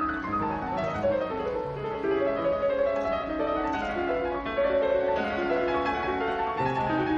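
Piano-led classical music with quick runs of notes: a figure skater's program music played over the rink's sound system.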